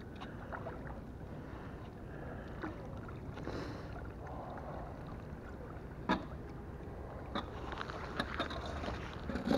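Water sloshing and lapping as a muddy metal kettle-grill bowl is swished at the surface on a rope to rinse out the mud, with a few light knocks, the clearest about six seconds in.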